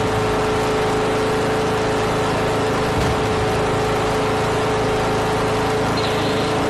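Ride-on lawn tractor engine running at a steady speed, its pitch holding level, with a single click about three seconds in.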